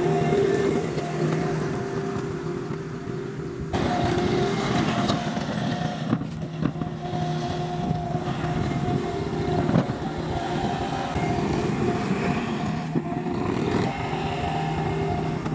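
Bobcat T66 compact track loader's diesel engine running steadily, with gravel crunching and scraping under the bucket and tracks as it spreads crushed-and-run stone. The sound changes abruptly about four seconds in and again a couple of times later.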